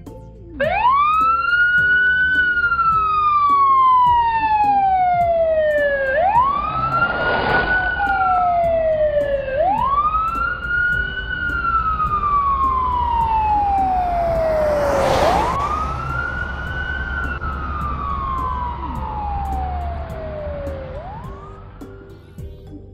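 Police car siren wailing: each cycle sweeps up quickly and then falls slowly, five times over. Two brief rushing noises come about 7 and 15 seconds in, and the siren fades near the end.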